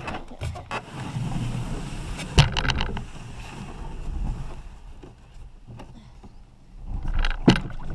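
Canoe being launched from the bank and boarded: thumps and sharp knocks on the hull, the loudest about two and a half seconds in and another near the end.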